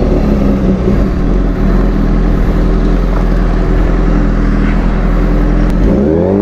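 Suzuki GSX-R 600 inline-four engine running through a new aftermarket exhaust as the bike rides off, with a heavy low rumble. Near the end the engine's pitch climbs as it revs up.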